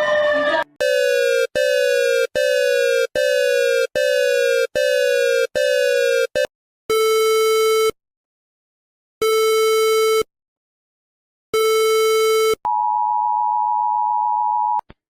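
Synthesized emergency alert attention tones. First come about eight short beeps in quick succession, each sliding slightly down in pitch. Then three long buzzy tones, each about a second, with gaps between them, and finally a steady higher-pitched tone held for about two seconds.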